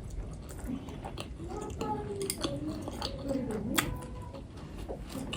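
Close-miked chewing of momo dumplings: wet mouth sounds with scattered sharp smacks and clicks, the sharpest about two and four seconds in. Faint children's voices in the background.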